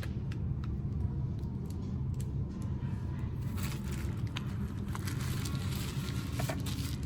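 Small clicks and taps of phone parts and tools being handled on a workbench, coming thicker in the second half, over a steady low hum.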